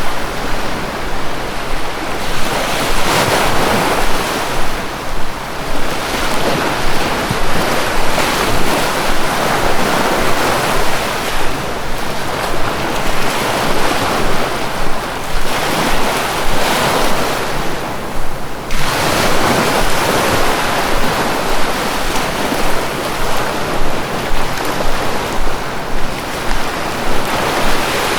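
Sea waves washing onto a shore: a continuous rushing surf that swells and ebbs every few seconds.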